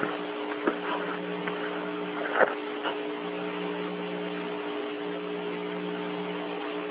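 Steady hiss and hum of the Gemini 4 air-to-ground radio link between transmissions. The lowest hum drops out briefly a few times, and a few clicks come through, the loudest about two and a half seconds in.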